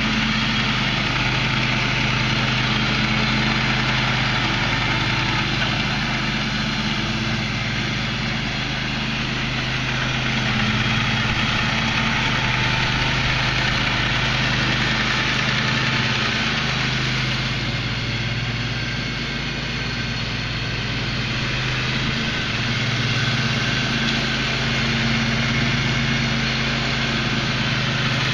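Husky 22 HP riding lawn mower engine running steadily, its level rising and falling gently a few times.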